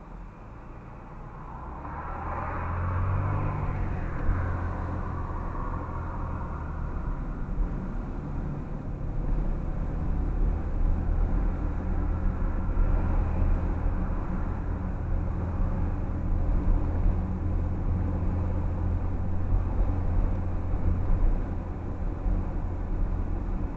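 Car engine and tyre noise heard from inside the cabin: the car pulls away from a stop about two seconds in, its engine note rising, then cruises with a steady low engine and road noise.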